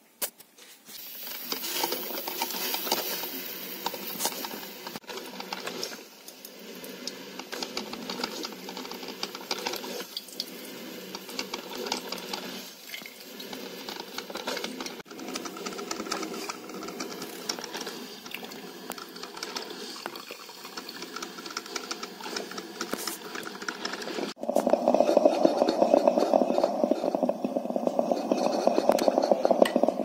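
Shinestar 6-cup drip coffee maker brewing: hot water gurgling and sputtering through the machine and dripping into the carafe, turning suddenly louder and deeper near the end.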